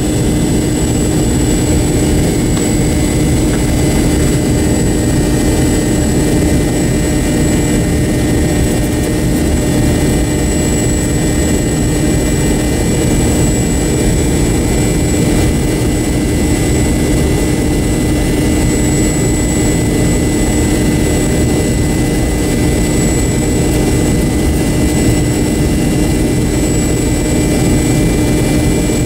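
Pratt & Whitney JT8D-219 turbofan engines of an MD-88 running steadily as the jet taxis, heard from inside the cabin beside the rear-mounted engine. A constant drone with a steady high whine over it, unchanging throughout.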